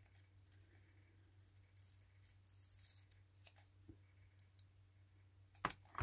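Near silence: faint scratching and rustling as a Teflon mouse skate is worked off the plastic underside of a gaming mouse, with a few small clicks and a sharper one near the end.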